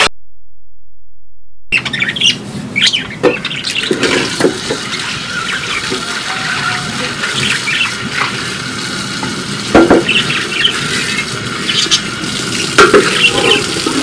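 Water running from a tap while a metal cooking pot and its lid are scrubbed and rinsed by hand, with small clinks of metal throughout and two louder clanks about ten and thirteen seconds in. Birds chirp in the background. The sound starts after a second or two of dead silence.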